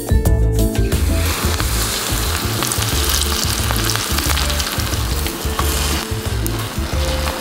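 Battered vegetable kakiage fritter hitting hot oil and deep-frying, a steady sizzle that starts about a second in and carries on, with a few faint ticks.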